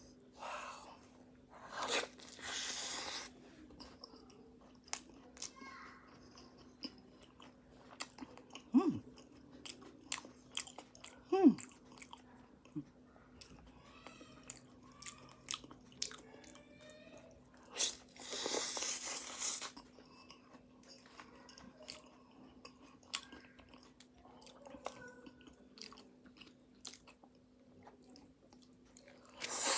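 Close-miked chewing and biting of pastry, with crunches and many small mouth clicks. Two longer hissing rustles come about two and eighteen seconds in, and two brief louder sounds with a sliding pitch near nine and eleven seconds. A faint steady hum runs underneath.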